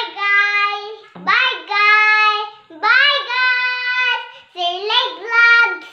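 A little girl singing unaccompanied, holding long high notes in four phrases with short breaks between them.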